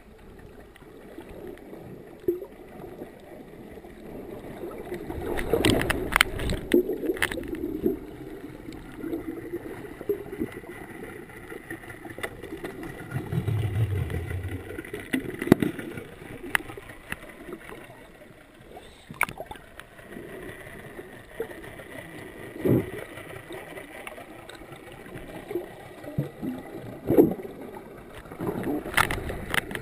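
Muffled underwater noise picked up by a submerged camera: water moving and gurgling, with scattered sharp clicks and knocks and a brief low rumble about halfway through.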